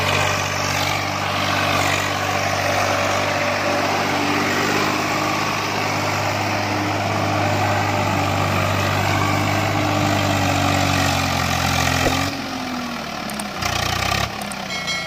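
Swaraj 744 FE tractor's diesel engine running steadily under load as it works through deep paddy-field mud. About twelve seconds in, the engine note falls away sharply and the sound turns quieter and uneven.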